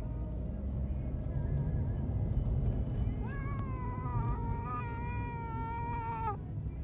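Domestic cat shut in a mesh pet carrier giving one long, drawn-out distressed meow about three seconds in, held for some three seconds, over a steady low rumble. It is the protesting cry of a cat being taken to the vet against its will.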